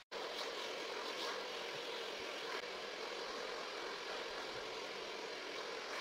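Handheld hair dryer running, a steady rush of blown air.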